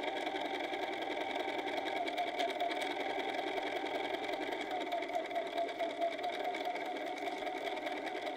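Bernina sewing machine running steadily, stitching a straight side seam through canvas fabric.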